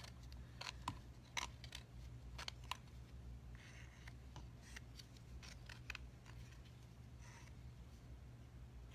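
Faint clicks and light scrapes of a wooden stir stick against a small plastic cup as epoxy resin is scraped out of it, over a low steady hum.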